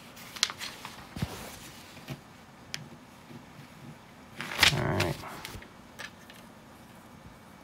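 A few light clicks of plastic LEGO pieces being handled, and paper rustling as the instruction booklet's pages are turned, with a louder half-second of handling noise about four and a half seconds in.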